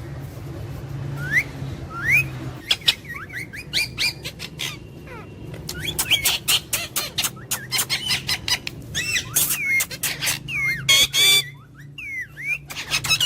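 Pet parrot chirping and squawking: short rising and bending whistled calls, many of them, mixed with sharp clicks, over a steady low hum.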